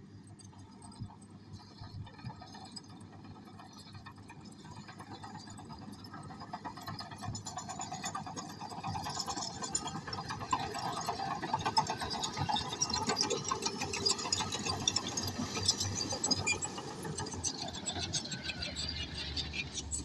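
Komatsu D155A crawler bulldozer working: diesel engine running under dense clanking and rattling from its steel tracks and the rubble under them, growing louder over the first half as the machine comes close.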